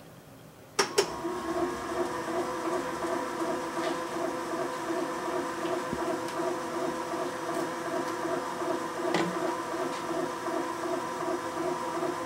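Serdi valve-seat machine's spindle starts with a click about a second in and runs on steadily, its cutter machining a new valve seat insert in a Pontiac 455 cast-iron cylinder head, with a regular pulsing whir.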